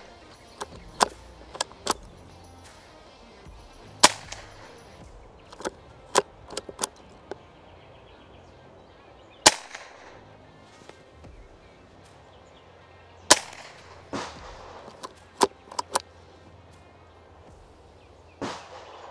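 Derya TM22 LA-18 lever-action .22 LR carbine firing single sharp shots a few seconds apart, with smaller metallic clicks between them as the lever is worked to chamber the next round from the box magazine.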